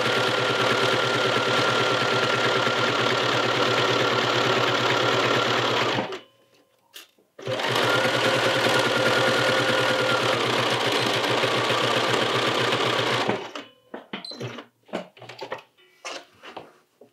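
Bernina sewing machine stitching a zigzag seam in knit fabric at a steady, fast speed. It stops about six seconds in, starts again a second and a half later, and stops for good near the end, after which there are a few light clicks and rustles of handling.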